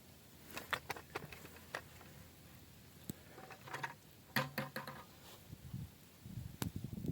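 Hands working through potting soil and potato plants: scattered light clicks and knocks in small clusters, with a low rustling toward the end.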